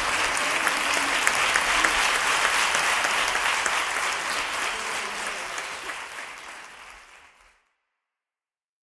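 Theatre audience applauding, a dense patter of many hands clapping, fading out over the last few seconds until it is gone.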